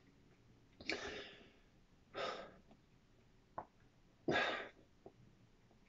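A man taking three quiet, deep breaths through the nose and mouth, each a short rush of air about half a second long, with a faint click between the second and third.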